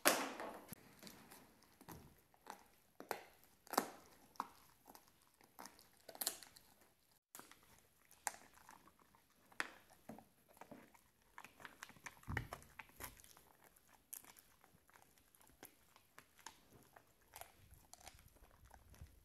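German Shepherd gnawing on a chew stick: quiet, irregular crunches and clicks of its teeth on the hard chew.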